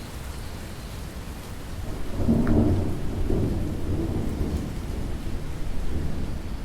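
Steady rain falling, with a low rumble of thunder that swells up about two seconds in and rolls on for several seconds.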